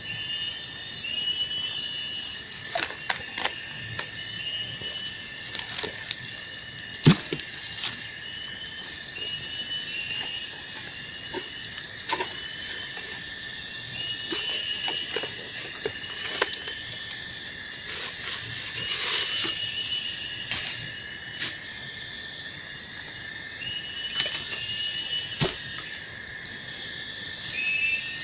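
Steady chorus of calling insects, with a short chirping call repeated about once a second. Scattered clicks and knocks come through it, the loudest about seven seconds in.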